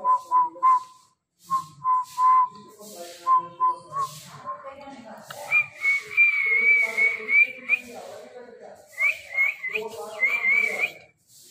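Whistling: a quick run of short, even notes at first, then a higher, wavering whistle held for about two seconds, and a few more short, wavering whistles near the end.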